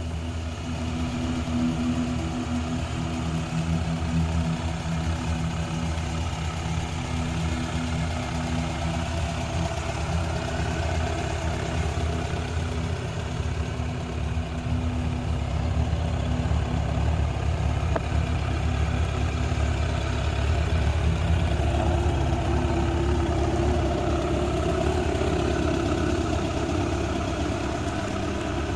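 Suzuki Bandit 600's carbureted inline-four engine idling steadily through its stock exhaust. It grows a little louder in the second half.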